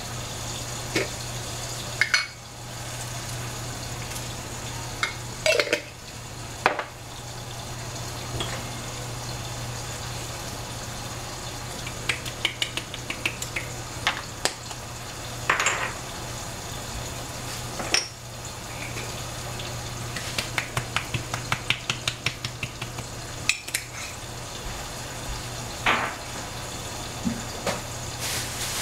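A cooking utensil clinks and scrapes against a pot at intervals, with runs of quick taps as food is stirred, over a steady sizzle of food cooking on the stove.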